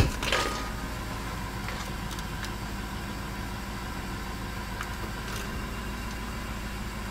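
The 2011 Jaguar XF's 5.0-litre V8 idling, heard from inside the cabin as a steady low hum. A sharp click comes right at the start, and a few faint ticks follow.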